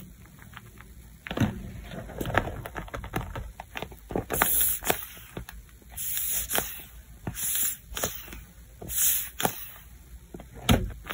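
Tape-covered paper squishies crinkling and crackling as they are handled and squeezed. About four seconds in, a run of four longer crinkly squeezes begins, each about a second and a half apart.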